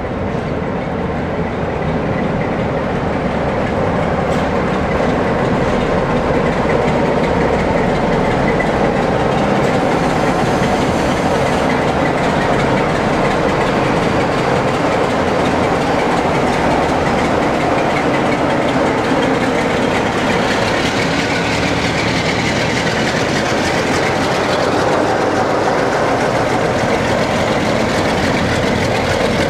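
Two Class 47 diesel locomotives, with their Sulzer twelve-cylinder engines, pulling away under power with a rake of coaches, with wheels rumbling over the rails. The sound grows over the first couple of seconds and turns brighter for the last several seconds as a locomotive passes close.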